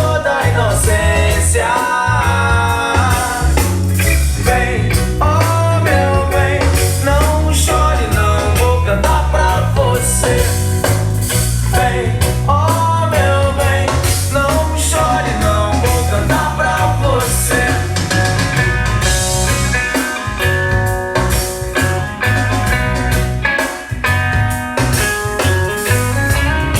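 Pop-rock music with guitar, drums and heavy bass and a steady beat, with some melodic vocal-like lines.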